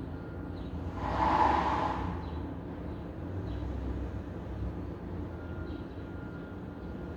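City street ambience with a steady low rumble of traffic. About a second in, a brief, louder rushing noise rises and falls away.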